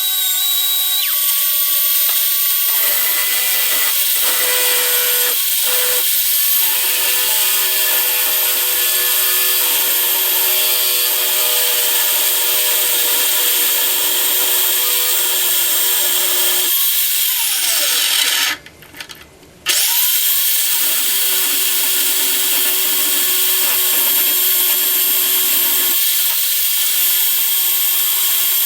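Small power tool spinning brass stock held in a 3-jaw chuck while a drive pin is machined from it. A steady high-pitched motor whine runs with cutting noise, winds down about 18 seconds in, stops for about a second, then spins back up.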